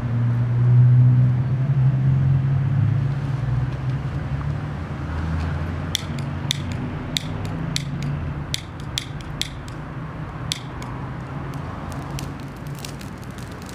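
Low steady rumble in the first few seconds, then sharp, irregular crackles from about six seconds in as dry twigs and brush catch fire.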